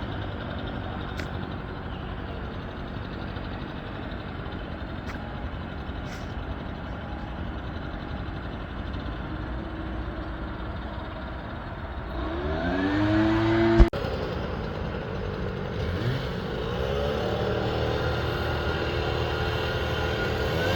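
An engine running under a steady background noise, then revving up with its pitch rising about twelve seconds in and again a few seconds later. A single sharp click about fourteen seconds in.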